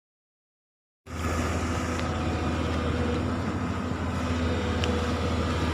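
Silence for about a second, then the steady running of a heavy construction machine's diesel engine.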